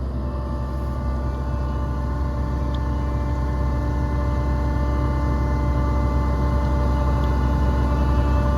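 John Deere combine harvester's diesel engine running steadily with a deep rumble and a constant whine, slowly growing louder as the combine creeps forward.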